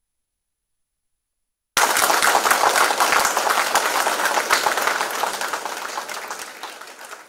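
Audience applauding: many hand claps start abruptly about two seconds in, loud at first, then gradually die away.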